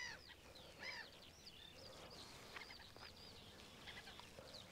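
Faint birdsong: many short, high chirps and whistled notes from small birds, over near silence.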